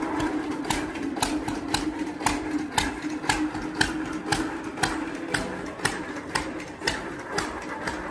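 Motorised sugarcane juice machine running, a steady motor hum with sharp mechanical clicks repeating about twice a second.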